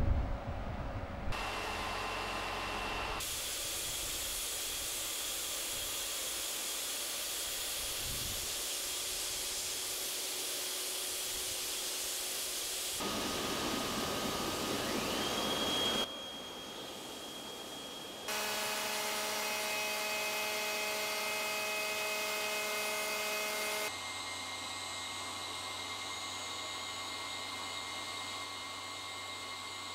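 Machinery running in a rotational-moulding plastics plant: a steady hiss and hum with whining tones, switching abruptly between different machine noises several times.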